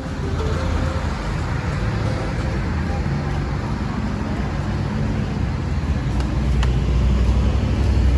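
A car on the move: steady road and engine noise, growing a little louder near the end.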